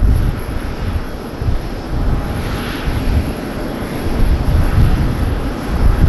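Jet airliner's engines rumbling, a heavy, uneven low roar with a hiss that swells briefly in the middle.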